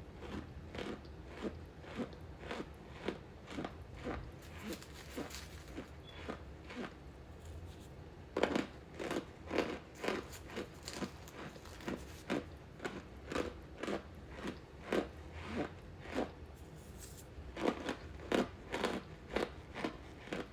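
A person biting and chewing a crunchy piece of Star Crunch Shop's Laundry Blast, with sharp crisp crunches about twice a second, louder from about eight seconds in.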